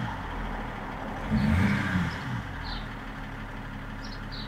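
BMW X5 E53's 3.0-litre straight-six turbodiesel idling, heard from inside the cabin, given one quick throttle blip about a second and a half in: the revs rise and fall straight back to idle. The pedal is working on the factory throttle mapping, with the response-control module switched off.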